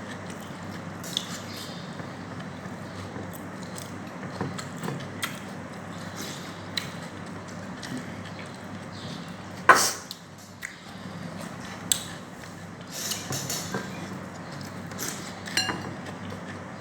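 Mealtime eating sounds: soft mouth and chewing noises with scattered clinks of utensils on a plate, the sharpest about ten seconds in, over a steady low hum.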